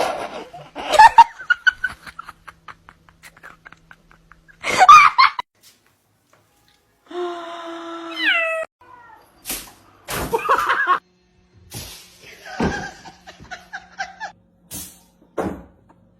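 A cat meowing, among a string of short, unrelated sounds and knocks.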